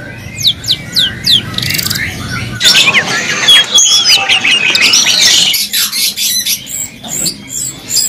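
Caged songbirds singing: a quick series of high whistles sliding downward in the first second, then rapid chirps and warbling that change abruptly a couple of times as one bird gives way to another.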